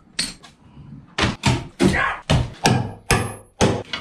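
A quick, irregular run of knocks and thumps, about nine in three seconds, as wooden and fiberglass interior fittings in a boat cabin are banged and pried loose.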